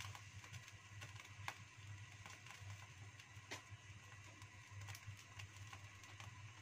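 Near silence: pans heating on a gas stove, with a faint steady low hum and a few scattered soft ticks.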